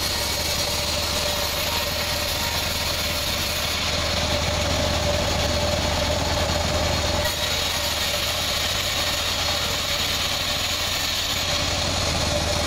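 Vertical band sawmill running steadily as its blade rips a board of old teak lengthwise: a dense rasp of the cut under a steady high whine from the machine.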